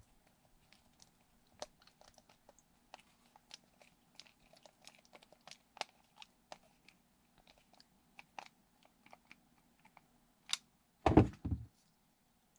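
Hand screwdriver driving a self-tapping screw into a 3D-printed plastic grip: many small, irregular clicks and creaks as the screw bites into the plastic. Near the end come a few louder knocks as the parts are handled.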